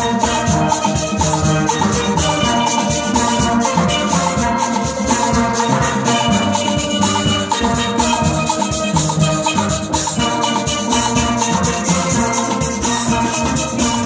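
Steel band playing live: steel pans of several ranges, from chromed lead pans to barrel-sized bass pans, with a steady rhythm of percussion ticks over the melody.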